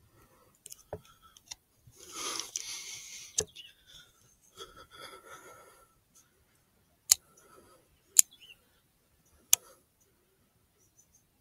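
Handling noise from a rifle and its thermal scope while aiming: scattered soft clicks and a short stretch of rustling, then three sharp clicks about a second apart near the end.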